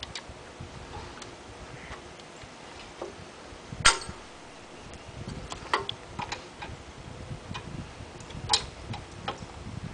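Hydraulic hose quick-couplers being snapped onto a tractor's couplings: several sharp metallic clicks at uneven intervals, the loudest about four seconds in.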